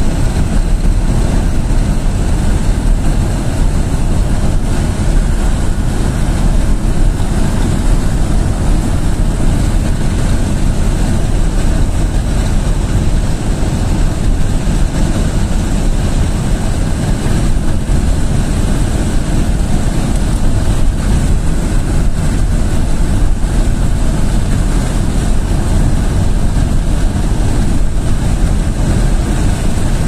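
Steady rumble of a vehicle driving along a gravel road, heard from inside: engine, tyre and road noise, heaviest in the low end.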